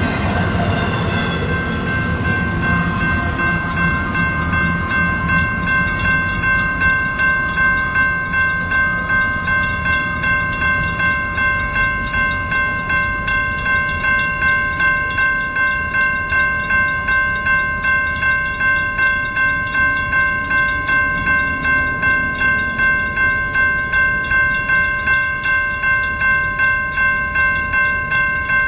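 Railroad grade-crossing bell ringing in steady repeated dings. Under it for the first few seconds, the end of a double-stack container freight train rumbles past and fades away.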